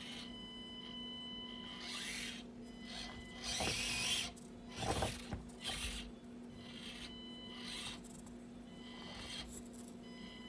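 Axial SCX24 Deadbolt micro RC crawler's small electric motor whining in short bursts as it works at climbing an obstacle, with a few clattering knocks about four to six seconds in as it hits the obstacle pieces.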